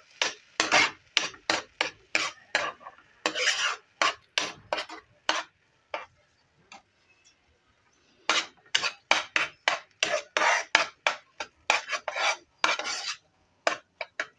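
Steel spoon scraping and pressing across a coated frying pan, stirring semolina cooked with water into a thick dough: quick rasping strokes, about two to three a second, with a pause of two or three seconds midway before the stirring resumes.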